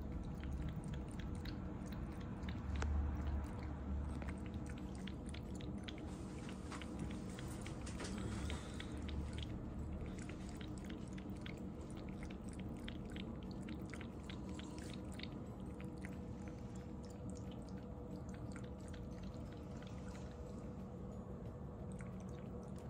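A cat licking and chewing a treat out of a ceramic bowl: a quick run of small clicks over a faint steady hum.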